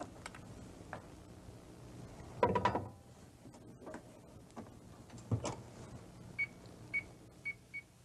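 A 1980s microwave oven: its door shuts with a clunk about two and a half seconds in, then a couple of light clicks and four short high keypad beeps near the end as the cooking time is set.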